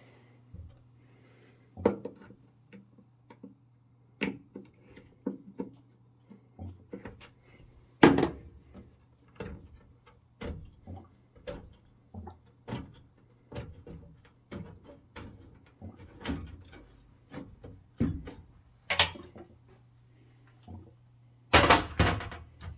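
Irregular knocks, clunks and clatter from handling a furnace cabinet and its parts as it is opened up. There is a loud knock about a third of the way in, another late on, and a quick cluster of bangs near the end. A faint steady low hum runs underneath.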